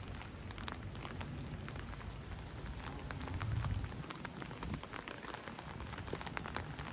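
Heavy rain falling, with a steady hiss and many separate drops ticking sharply. A low rumble swells briefly about three and a half seconds in.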